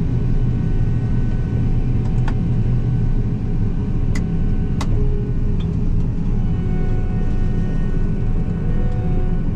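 Combine harvester running steadily, heard from inside the cab: a low engine and machinery drone, with a few faint clicks about two seconds and four to five seconds in.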